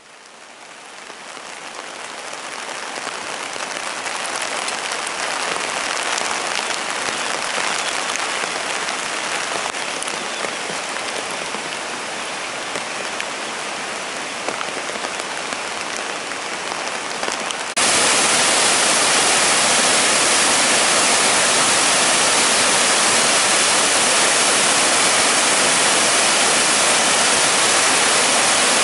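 Steady rush of a mountain stream in flood, swollen by heavy rain, fading in at the start. About two-thirds of the way through it cuts abruptly to a louder, closer rush of the muddy torrent pouring over a drop, where the stream normally only trickles.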